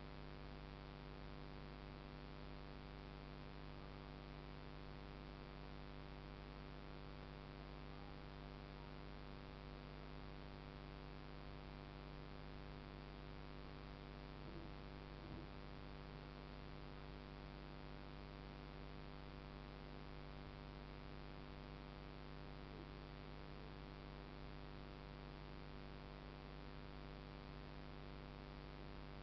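Faint, steady electrical hum of many layered steady tones over a low hiss, unchanging in level.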